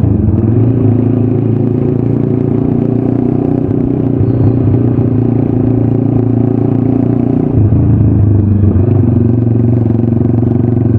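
Sigma 250 motorcycle engine running through an aftermarket SC Project exhaust pipe, a steady exhaust note that shifts in pitch and gets louder about seven and a half seconds in.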